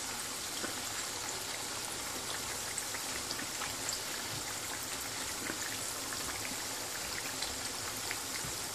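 Churros deep-frying in hot oil in a small pan: a steady sizzle with scattered small pops and crackles.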